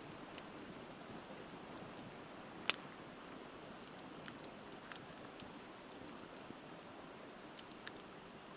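Wood bonfire crackling with scattered pops, one sharp pop a little under 3 seconds in, over the steady rush of a flowing river.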